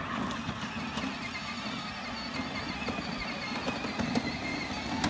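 Child's battery-powered ride-on toy four-wheeler driving across grass, its electric motors and plastic gearbox whirring steadily.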